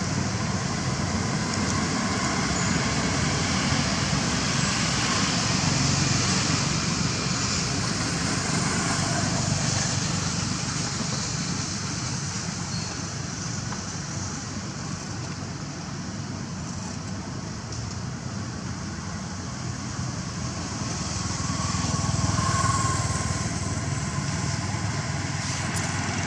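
Steady outdoor background rumble and hiss with no distinct event, swelling slowly twice, about six seconds in and again a little past twenty seconds.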